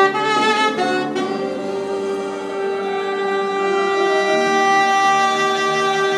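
Saxophone played live in a jazz style: a few quick notes, then long held notes from about a second in.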